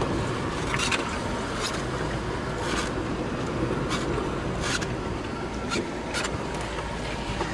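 Steady rush of wind and sea aboard a sailboat under way in rough weather, broken by a dozen or so irregular sharp spatters and clicks.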